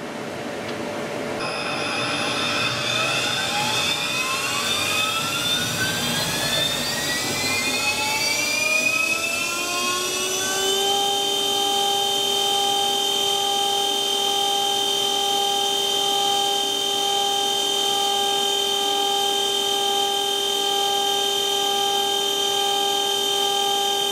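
VFD-driven CNC spindle motor spinning up: its whine rises in pitch for about nine seconds, then holds steady at running speed.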